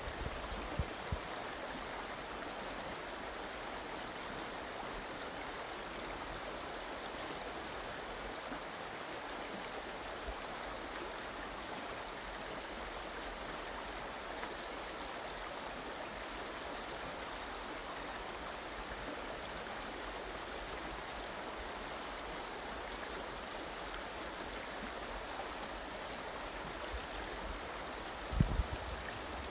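River water rushing steadily over a gravel and stone bed, with a brief low thump near the end.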